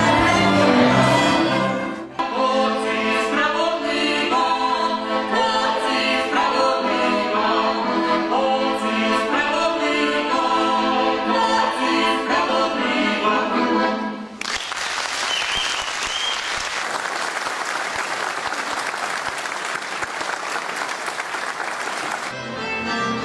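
Folk dance-band music cuts off about two seconds in. A woman then sings a folk song to accordion accompaniment. About fourteen seconds in, the audience applauds for roughly eight seconds, and the fiddle band starts up again near the end.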